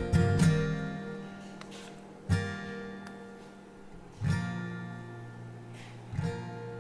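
Background music: acoustic guitar strumming slow chords, one strum roughly every two seconds, each left to ring out and fade.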